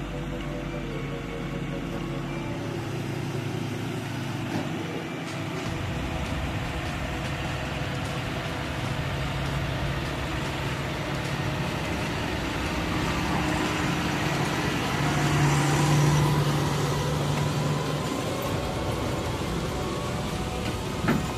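New Holland tractor's diesel engine running as it tows a Krone forage wagon past, growing louder to a peak about 16 seconds in as it goes by close. A short knock near the end.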